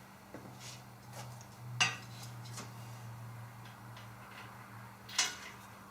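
Small metal clinks as a washer and bolt hardware are handled and fitted onto the squaring bar's bolts, with a sharper clink about two seconds in and another couple near the end.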